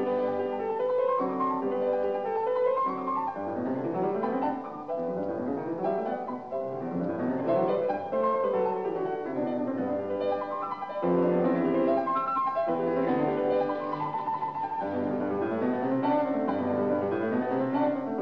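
Piano music, classical in style, with quick flowing runs of notes.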